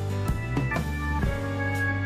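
Background music: held chords over a deep bass, with a few drum hits.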